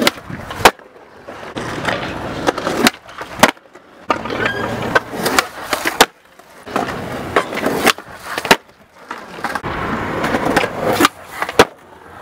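Skateboards rolling on concrete, with sharp clacks of tail pops and landings. The rolling noise stops and restarts abruptly several times across a series of short takes.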